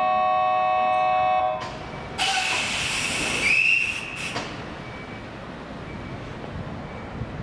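A steady chord of several tones cuts off about a second and a half in. Then compressed air hisses sharply from the standing Kintetsu 22600-series train for about two seconds, peaking twice, and a low steady hum is left.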